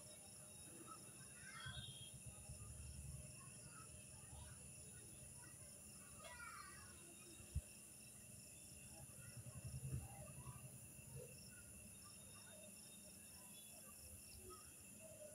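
Near silence: faint background hiss with a faint high chirp repeating evenly throughout, a few soft handling rustles, and one small click about halfway through.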